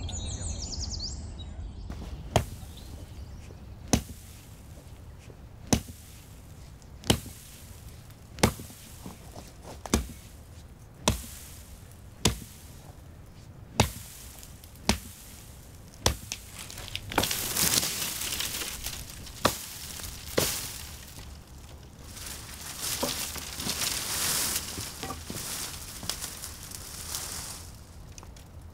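Axe chopping brushwood: about a dozen sharp strokes, one every second and a half or so. Rustling comes in over the later strokes.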